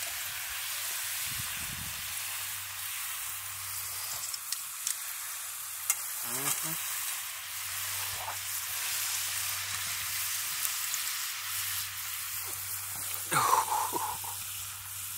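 French fries deep-frying in hot oil in a cast-iron skillet over a campfire: a steady sizzle with a few sharp pops. A brief voice comes in near the end.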